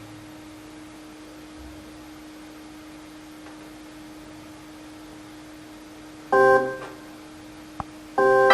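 Casio LK-230 portable keyboard: a faint steady hum-like tone for about six seconds, then a chord played about six seconds in that quickly fades. A short click follows, and a louder chord is struck near the end.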